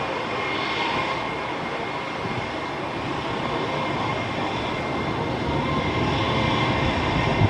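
Airbus A320-232's IAE V2500 jet engines heard at a distance as the airliner lands: a steady jet rumble with a thin whine on top, growing a little louder over the last couple of seconds.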